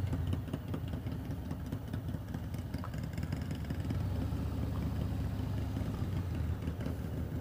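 Harley-Davidson Road Glide's V-twin engine running at low speed, a steady low rumble of closely spaced firing pulses through an aftermarket TBR exhaust.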